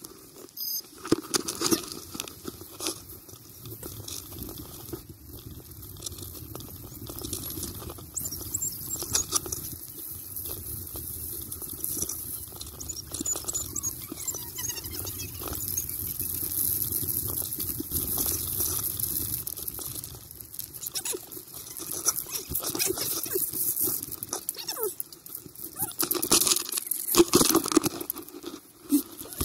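Continuous crunching and crackling of movement over packed snow, with scattered small clicks and knocks and a steady rushing noise, growing louder and more uneven near the end.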